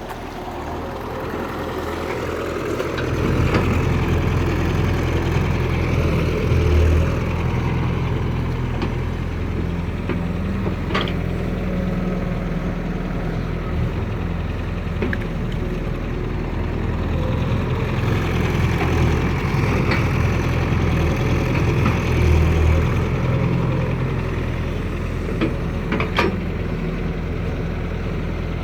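Excavator's diesel engine running and working under load, picking up about three seconds in and rising and falling as it works. A few sharp knocks cut through, the clearest two near the middle and near the end.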